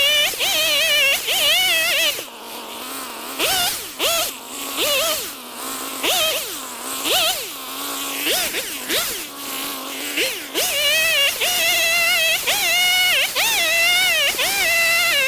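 Chainsaw engine revving in short repeated bursts, about one a second, each rising and dropping back. About ten seconds in it is held at high revs with a wavering pitch.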